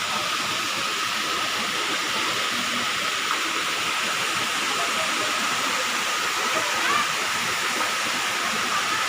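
Running water rushing steadily, a continuous even noise with no breaks.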